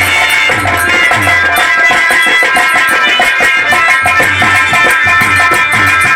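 Instrumental nautanki folk music: a harmonium holding and moving between sustained chords over a steady, driving beat of hand drums.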